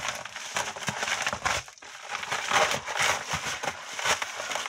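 Packaging being handled and opened: a dense run of crinkling and crackling, with a short lull just under two seconds in.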